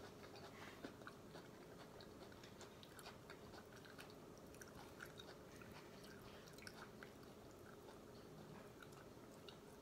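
Faint, close-up chewing of food: a scatter of small wet mouth clicks and smacks.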